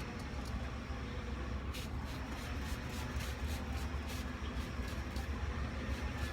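Faint repeated squirts of a hand spray bottle misting liquid onto ribs, over a steady low hum.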